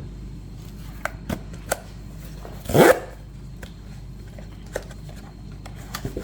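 A few light clicks as small plastic figures are handled, and nearly three seconds in one short, loud cry that rises in pitch.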